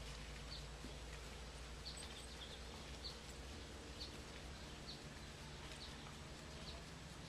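Faint outdoor ambience: a bird chirping in short single notes about once a second over a steady low hiss.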